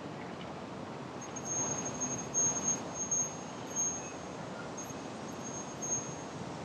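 Steady outdoor background hiss, with a high, thin, pure tone at one pitch that comes and goes in short pulses from about a second in until near the end.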